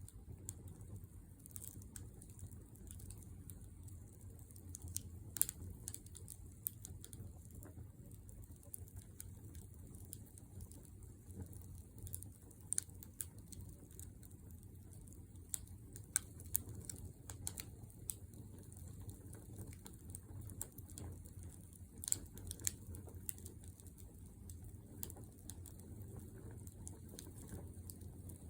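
Wood fire burning in a fire-pit stand: a faint, steady low rumble of flame with irregular sharp crackles and pops from the burning wood.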